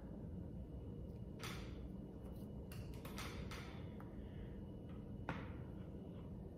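Faint room tone through a headset microphone, with a few short, soft breathy rustles and one small sharp click about five seconds in.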